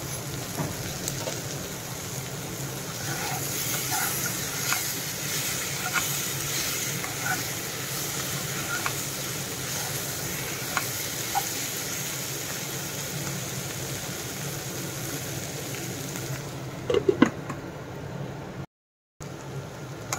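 Brinjal and capsicum pieces sizzling in a nonstick frying pan as a metal spatula stirs the garam masala through them in the last, dry stage of the fry. A steady hiss with scattered scrapes and clicks of the spatula on the pan, a few louder knocks near the end, then a brief cut-out.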